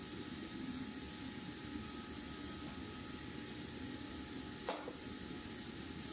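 Steady background hiss and rumble, with one faint short knock about three-quarters of the way through as the cone of smelting slag is set down in a steel pan.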